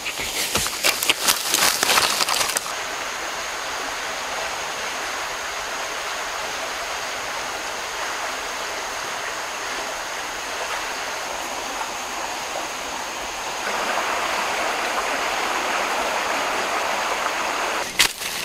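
Crackling and rustling of dry leaves and twigs at first, then a steady rushing outdoor hiss with a constant high insect drone above it. Near the end, a bare foot crunches on dry leaves.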